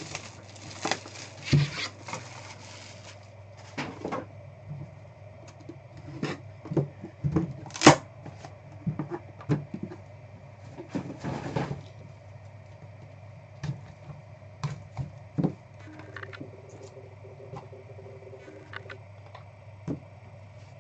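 Hands opening and handling a trading card box: bursts of wrapper rustling and tearing, with scattered clicks and taps of cardboard and cards and one sharp snap near the middle, over a low steady hum.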